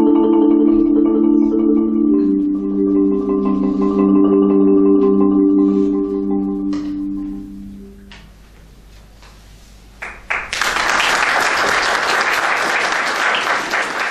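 Marimba played with yarn mallets: the closing low chords are held and die away over the first eight seconds. After a short hush, audience applause starts about ten seconds in.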